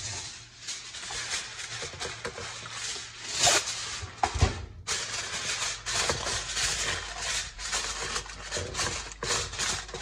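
Aluminium foil crinkling and rustling as it is pulled over a glass baking dish and crimped around the rim, with a few sharper crackles near the middle.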